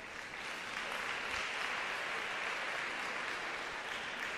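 Arena audience applauding, building over the first second, holding steady and easing off near the end.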